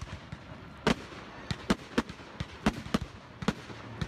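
Fireworks display: aerial shells bursting overhead in an irregular string of sharp bangs, about two a second, over a steady background hiss.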